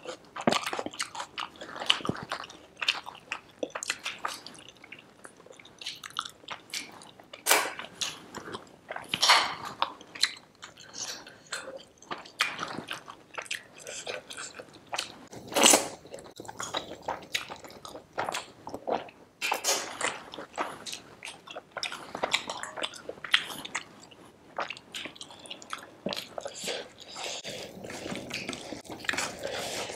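Close-up mouth sounds of a person eating chicken curry with rice by hand: chewing, biting and lip smacks, with irregular sharp clicks and the wet squish of fingers working rice into the gravy.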